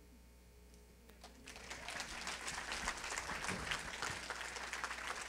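Audience applauding in a large room, starting about a second and a half in and building to steady clapping.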